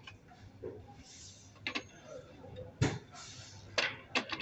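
Plastic parts of a Canon iR 2525/2530 copier drum unit being handled: several sharp clicks and knocks at irregular intervals, the loudest about three seconds in, with brief soft rustling between them.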